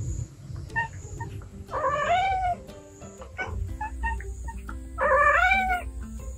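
Cat giving two long yowls, each rising then falling in pitch, a few seconds apart: the warning calls of a street cat squaring off against another cat. Light plucked background music underneath.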